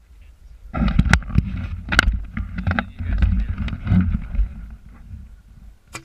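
Wind and handling rumble on a GoPro action camera's microphone, with a few sharp clicks about 1, 2 and 3 seconds in and another near the end.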